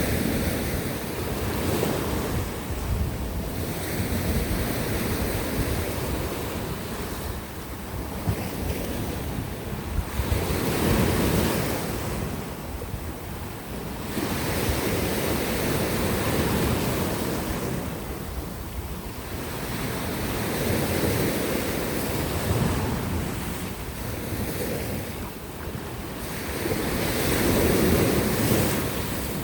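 Sea waves breaking and washing on a rocky shore, the surf swelling and easing every few seconds, with wind buffeting the microphone.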